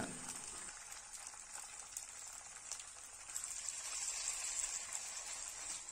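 Marinated chicken pieces frying in hot coconut oil in a nonstick wok: a steady sizzling hiss with faint crackles. It gets a little louder about halfway through as more chicken goes into the oil.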